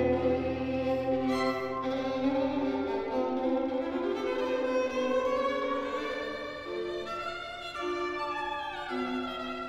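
Violin music: a bowed violin melody of held notes that slide down between pitches, over a lower accompaniment whose deep bass note fades out about three seconds in.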